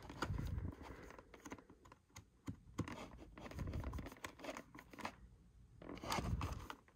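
Handling of a fashion doll in its plastic packaging: scattered light clicks, taps and crinkling rustles, with louder rustling near the start, around four seconds in and again around six seconds in.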